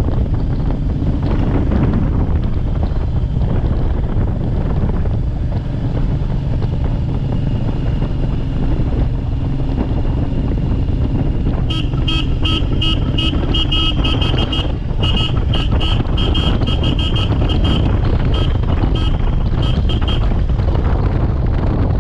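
Steady wind rush on the microphone over a moving motorcycle. From about halfway in, a vehicle horn sounds in rapid, repeated short beeps for about eight seconds.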